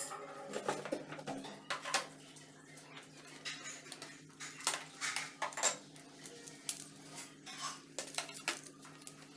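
Irregular clicks and clatter of plastic and metal fittings as the pressure washer's high-pressure hose and connectors are handled, over a faint steady low hum.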